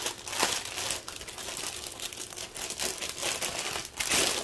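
Plastic packaging crinkling and crackling as it is handled, with a louder stretch of crackling about four seconds in.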